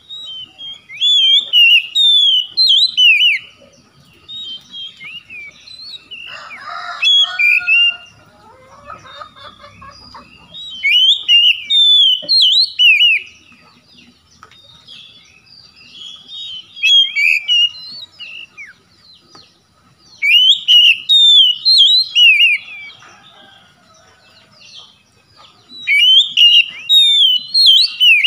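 Oriental magpie-robin singing, loud spells of rapid, varied whistled phrases that come about four times, each two to three seconds long, with quieter song in between. A lower, harsher call sounds about six to eight seconds in.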